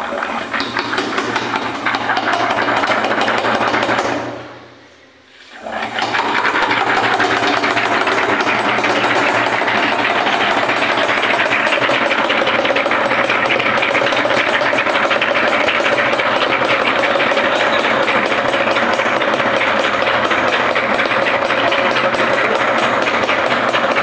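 Steam from a wood-fired boiler blowing through a pipe into a bucket of water, condensing with a loud, rapid crackling rattle. It drops away briefly about four seconds in, then comes back steady, with a note that slides down and holds under it.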